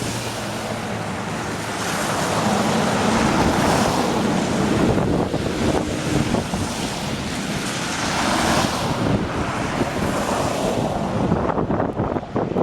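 Wind buffeting the microphone in gusts, a rushing noise that swells and eases, over a faint steady low hum.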